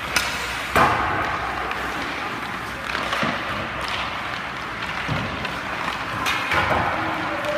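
Ice hockey skates scraping across rink ice, with several sharp clacks of a stick striking a puck; the loudest crack comes about a second in.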